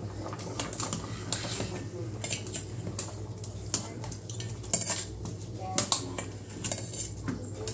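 A cooking utensil clinking and scraping against a pot in irregular light knocks as a thickening coconut-milk dish is stirred.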